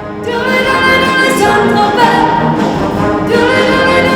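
Music with brass instruments playing held, chord-like notes.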